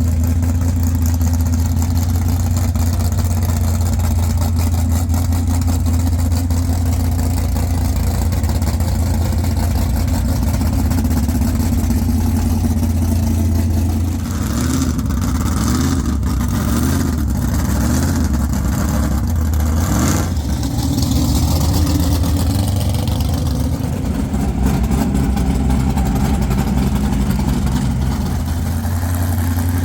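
Van engine idling with a low, steady exhaust drone, with a run of quick throttle blips that rise and fall in pitch about halfway through before it settles back to idle.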